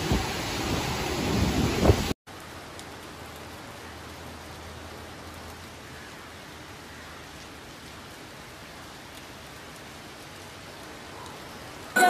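Heavy monsoon rain with strong wind gusts rumbling on the microphone. About two seconds in it cuts off abruptly and gives way to a quieter, steady hiss of rain.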